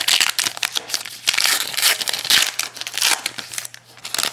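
Plastic foil wrapper of a baseball card pack crinkling loudly in the hands, with many fine crackles, as the cards are slid out of it.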